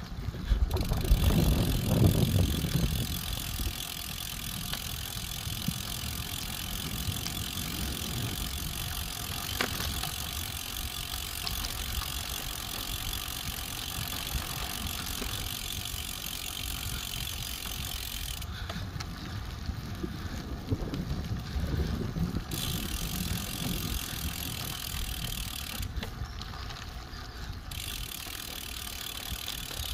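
Road bike rolling over a compacted dirt road: steady tyre noise with the rattle and ticking of the bike, and wind rumbling on the microphone, strongest about one to three seconds in.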